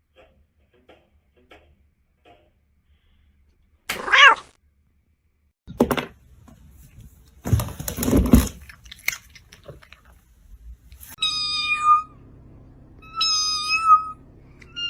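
A cat meowing: one short meow that bends in pitch about four seconds in, then two long, high-pitched meows near the end. Between them come a couple of knocks and some rustling.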